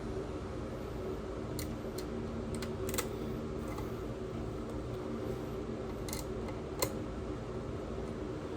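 A few sharp small clicks and taps of screws, a screwdriver and plastic parts being handled while a PlayStation 5 is put back together, over a steady low hum.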